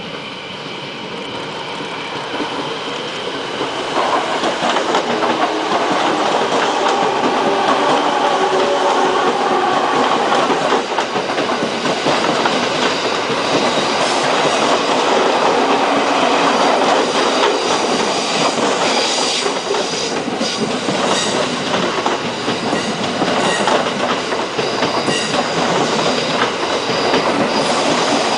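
JR East E217 series electric train pulling into the station, its wheels clattering over the rail joints; the sound builds over the first few seconds and then holds. High wheel squeal comes and goes through the second half.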